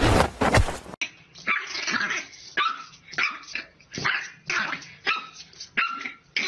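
About a second of music that cuts off abruptly, then a French bulldog puppy barking at its own reflection in a mirror: a string of short yapping barks, about two a second.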